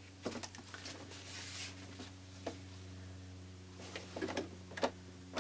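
Baby Lock Jubilant sewing machine running steadily as it stitches binding onto a quilt, a constant low hum, with scattered soft rustles and taps as the quilt fabric is fed under the foot.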